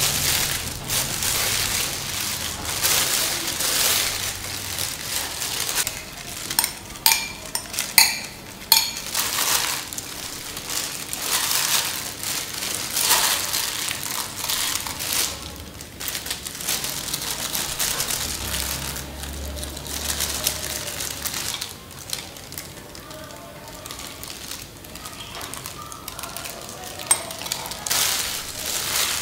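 Kitchen food-preparation sounds: wet raw shrimp tipped from a metal strainer into a glass dish, then gloved hands working sliced vegetables and shrimp together, with the rustle of plastic gloves. A few sharp clinks of dishes come about seven to nine seconds in.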